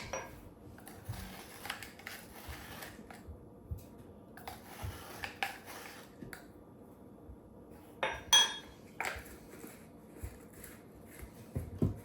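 Scattered light clinks and taps of a measuring spoon, bowl and spice containers while dry seasonings are measured out, with a louder clatter about eight seconds in.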